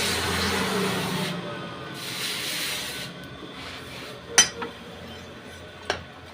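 Two bursts of rasping, rubbing noise of steel being worked, then two sharp metallic clinks about a second and a half apart.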